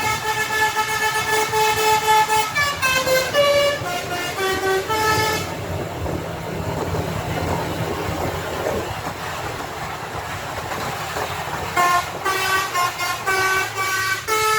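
A bus's "basuri" multi-tone telolet horn playing a tune: a held chord, then a run of short stepping notes, breaking off about five and a half seconds in. For several seconds only a steady low engine hum and background noise remain, then the horn tune starts again about two seconds before the end.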